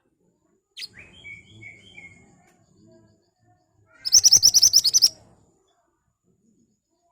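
Pied bushchat (mantenan) singing: a sharp downward-swept note and a few short whistled notes, then, about four seconds in, a loud, rapid burst of about ten high, sharp notes lasting about a second.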